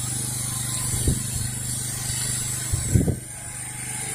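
Softwash spray gun with an X-Jet nozzle shooting a long stream up a three-story wall, a steady hiss over the even hum of the pressure washer's engine. Two brief low thumps come about a second in and again near three seconds.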